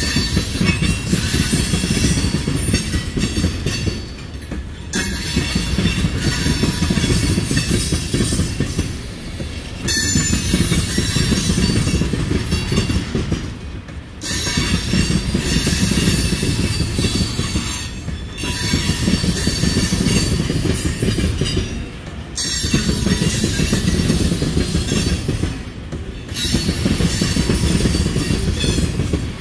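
Freight train tank cars rolling past, with steel wheels clattering on the rails and a thin wheel squeal. The sound swells and dips about every four seconds.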